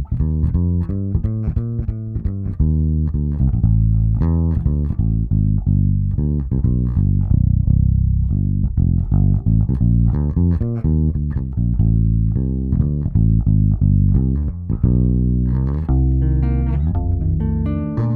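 Electric bass guitar played solo: a busy line of quick plucked notes at an even, steady loudness, moving into higher notes near the end.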